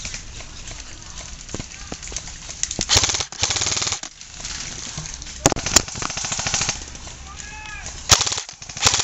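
Airsoft guns firing rapid automatic bursts, one about three seconds in and another lasting about a second from midway. Sharp single cracks come between and after the bursts.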